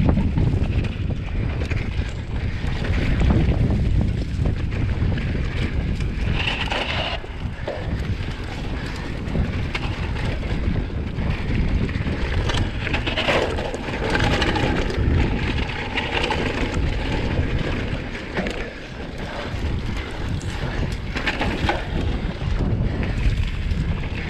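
Wind rushing over a GoPro action camera's microphone as a mountain bike rolls down dirt singletrack, with brief louder stretches about 7 and 13 seconds in.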